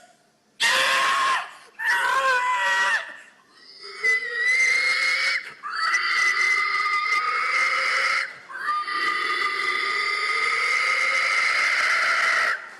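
A person imitating a pig with the voice. It opens with a harsh, rough burst, then gives a short squeal and three long, high squeals held at a steady pitch, the last lasting about four seconds.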